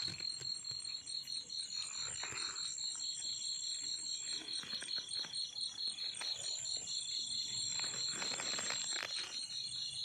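A chorus of night insects calling steadily: a high, rapidly pulsing chirp with a second, even higher trill above it. Brief rustling and crackling of leaves and twigs comes about two seconds in, and again for a stretch near the end.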